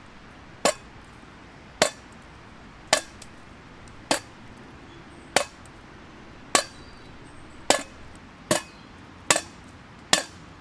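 A wooden stick knocking on something hard, ten sharp knocks about a second apart that come a little faster near the end, each with a short clinking ring.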